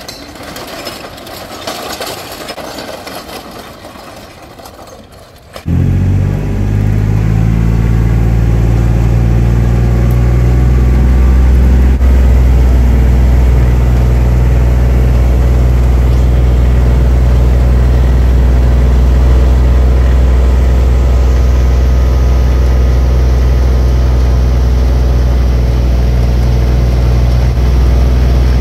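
Engine of a robotic golf ball picker starting up abruptly about six seconds in and then running loud and steady at an even speed, after a few seconds of outdoor noise.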